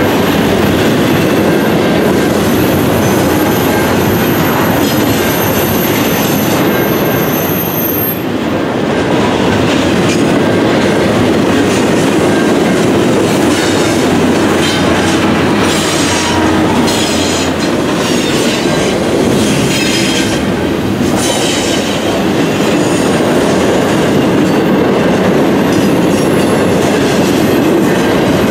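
Loaded double-stack container well cars rolling past close by: a steady loud rumble of steel wheels on rail with clicking over the joints. A thin, high-pitched wheel squeal rings over it and stops about eight seconds in.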